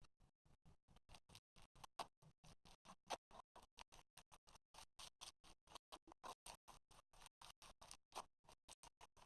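Slime being worked by hand: a quick, quiet run of small clicks and pops, about five or six a second, with a few sharper pops around two, three and eight seconds in.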